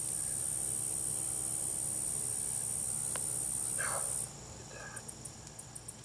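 A steady, high-pitched insect trill, typical of crickets or katydids calling at dusk, cuts off suddenly about four seconds in. Faint repeated chirps follow. A soft scrape of hands in loose soil comes just before the trill stops.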